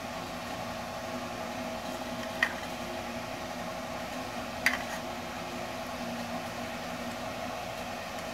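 A steady background hum with a few fixed tones, like a running fan or appliance, with two short clinks, a spoon against a steel bowl, about two and a half seconds and nearly five seconds in.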